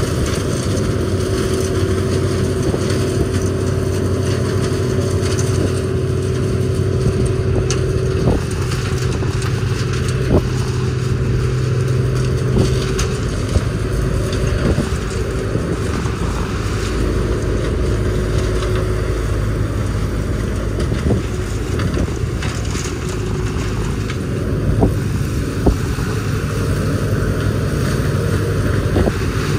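CLAAS Mega 204 combine harvester running steadily as it harvests dry feed corn, with a steady engine and machinery hum. Scattered sharp cracks come from stalks being pulled into the corn header and broken.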